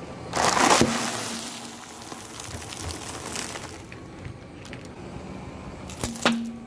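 A car tyre rolling over a sealed bag of puffed potato snacks: the bag bursts with a loud pop about half a second in, then the crisps crunch and crackle under the tyre for a few seconds. Near the end a short sharp burst comes as a water-filled item is crushed and sprays water.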